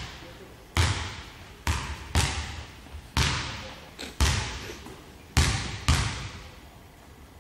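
Basketball bouncing on a hardwood gym floor: about eight irregularly spaced bounces, each echoing in the hall, stopping about six and a half seconds in.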